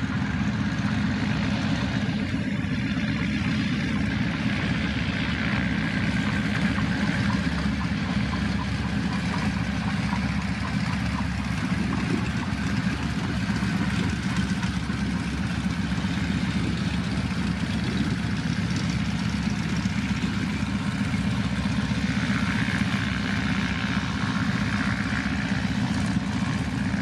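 Nanchang PT-6 (CJ-6) trainers' nine-cylinder radial engines running at low taxi power, a steady propeller-driven engine rumble as the aircraft taxi past.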